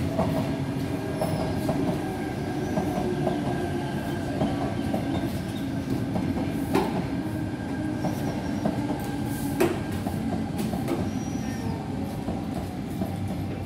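Double-deck electric passenger train rolling past below: a steady rumble of wheels on rails with a faint steady whine. Two sharp clacks come in the second half, as the wheels run over rail joints or points.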